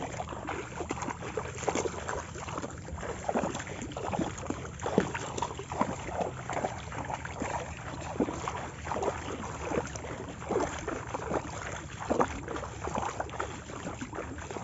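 Footsteps wading through shallow water: the water sloshes and splashes with each step in an uneven rhythm.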